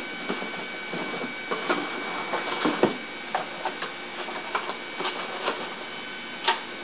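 Cardboard and plastic packaging being handled as items are taken out of a box: scattered light rustles, taps and clicks, over a faint steady hum.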